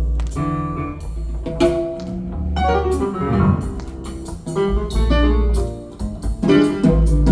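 Recorded music played over open-baffle hi-fi loudspeakers: a plucked guitar tune with a strong bass line and percussion, in a jazz-blues style.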